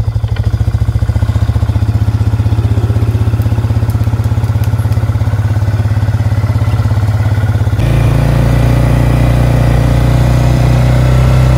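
Four-wheeler (ATV) engine running steadily at low speed as it tows a field-dressed buck, with an even pulsing exhaust note. The engine note shifts about eight seconds in.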